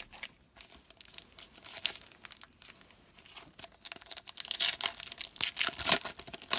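Foil wrapper of a trading-card pack being torn open and crinkled, a dense irregular crackling that gets louder and busier in the second half.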